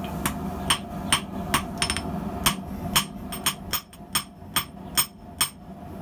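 Hand hammer forging a small red-hot fire-welded steel billet on an anvil: a steady series of sharp, ringing blows, about two to three a second. The smith finds the steel surprisingly hard under the hammer.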